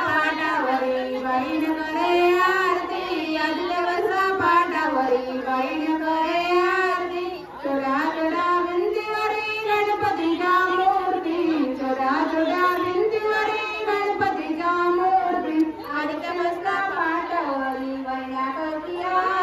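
A woman singing a Marathi song into a handheld microphone: a slow, unaccompanied melody of long held notes that glide up and down, with a short break about seven seconds in.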